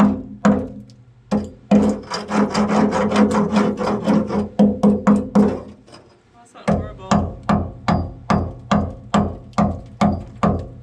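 Hammer blows knocking rotted plywood and rust scale off a steel boat's hull floor: fast, steady strikes, three to four a second, with a short pause about six seconds in.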